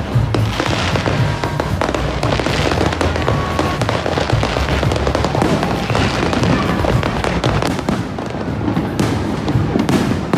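Aerial fireworks display with dense, rapid popping and crackling, over background music.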